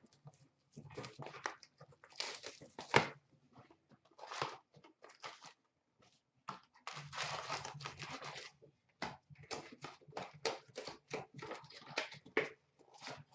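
A sealed hobby box of hockey cards being torn open and its contents pulled out: irregular tearing, crinkling and rustling of wrapper and cardboard, with many small clicks and taps. A sharp snap comes about three seconds in, and a longer stretch of tearing comes a few seconds later.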